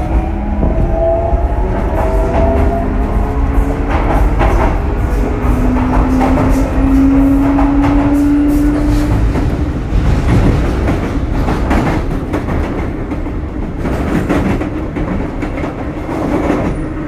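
Onboard running sound of a Sotetsu 8000 series electric train: the whine of its Hitachi IGBT-VVVF inverter drive, rising slowly in pitch, over the rumble of the wheels and the clatter of rail joints.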